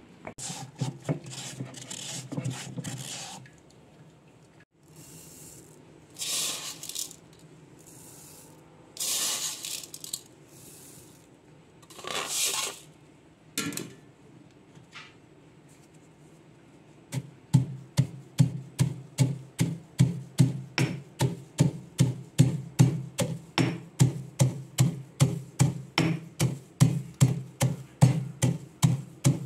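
Stone pestle pounding in a stone mortar, a steady beat of about three thuds a second starting a little past halfway. Before that, a few short scraping and rustling sounds.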